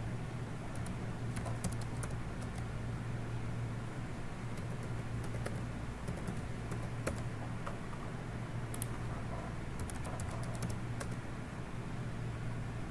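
Computer keyboard being typed on: irregular key clicks over a steady low hum.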